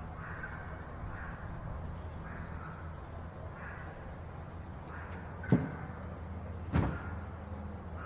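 Burrowing owls giving short, raspy calls, about one a second, over a low steady hum. Two sharp knocks a little over a second apart, past the middle, are the loudest sounds.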